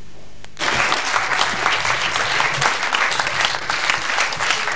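An audience starts applauding suddenly about half a second in, after a brief hush, and keeps up dense, steady clapping.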